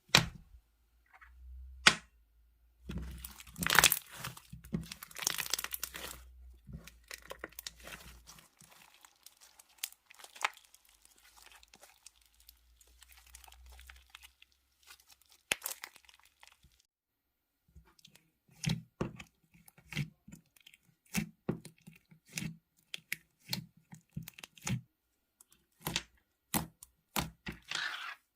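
Slime handled by hand, squeezed, stretched and pressed, giving crackling, popping and squelching sounds. There is a dense crackly stretch early on and a steady run of separate squelches in the second half.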